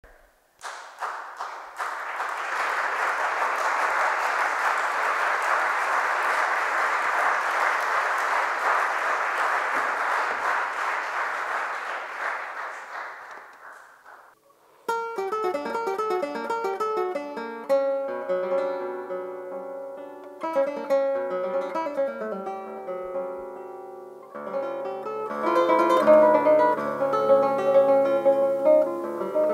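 Audience applauding, the applause dying away after about fourteen seconds. Then a solo classical guitar begins, with plucked notes and chords that grow louder near the end.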